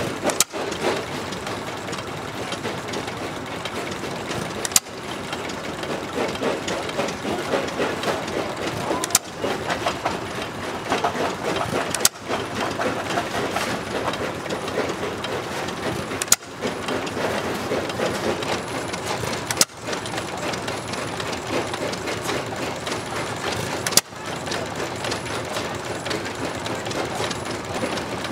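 Old stationary engines running, heard as a string of short takes: the steady mechanical running breaks off and changes abruptly with a click every three to five seconds.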